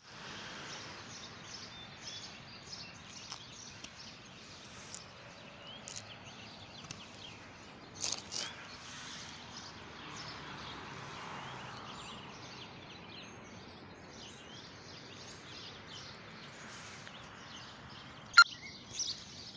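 Outdoor ambience of many birds chirping and calling in short notes over a steady background hiss, with a single sharp click near the end.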